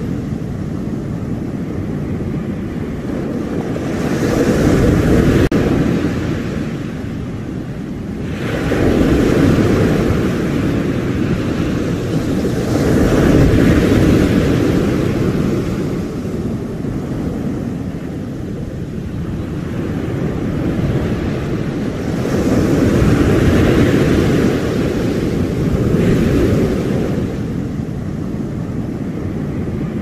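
Ocean surf: waves breaking and washing up a sandy beach in a continuous hiss that swells with each breaker every few seconds.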